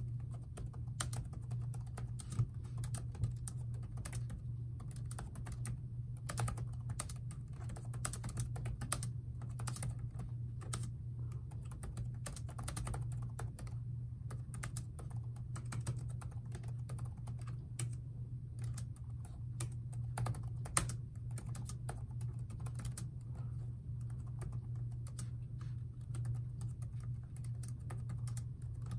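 Continuous fast typing on a Samsung Chromebook 3's low-travel laptop keyboard: a quick, uneven run of key clicks, over a steady low hum.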